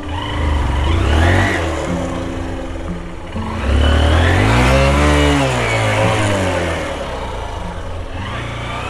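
Motorcycle engine revving hard, climbing in pitch and then falling back about halfway through, with a smaller rev near the start, over background music.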